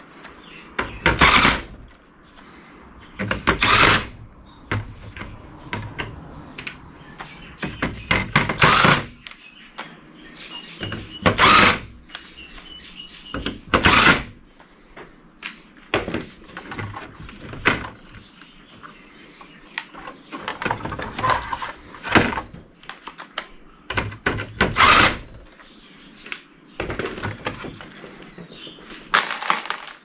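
Cordless electric screwdriver running in repeated short bursts of about a second as screws are backed out of a circuit board, with clunks and rattles of handling in between.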